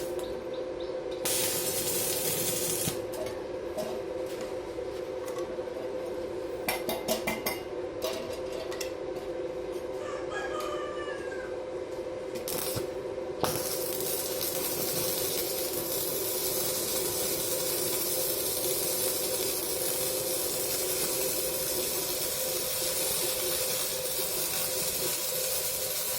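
Electric welding arc hissing over a constant machine hum. The hiss starts and stops with a few clicks in the first half, then runs unbroken from about halfway in.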